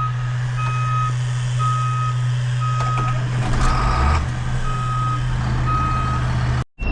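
Electronic warning beeper sounding a steady tone about once a second, over the low steady hum of an idling diesel engine. A short swell of engine noise comes about halfway through.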